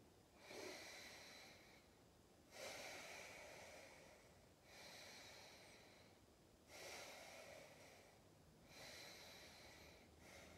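Faint, slow breathing from a person holding a yoga pose: five unhurried breaths, each one to two seconds long, with short pauses between.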